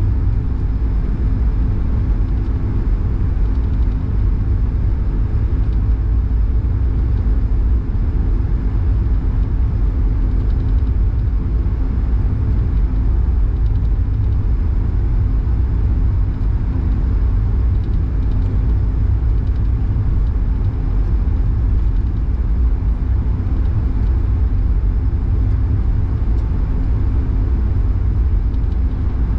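Steady low rumble and hum inside the cabin of an Airbus A220 taxiing with its Pratt & Whitney PW1500G geared turbofans at low power, with a faint high whine above it.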